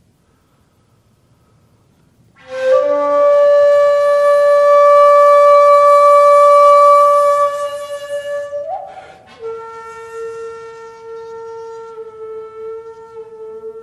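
Solo shakuhachi (Japanese end-blown bamboo flute): after a short pause, a long, breathy held note sounds loud and then fades. Near the end the pitch flicks briefly upward, then settles into a softer, lower sustained note.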